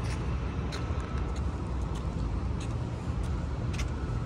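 Steady low rumble of city traffic, with light footsteps on pavement ticking every half second to a second.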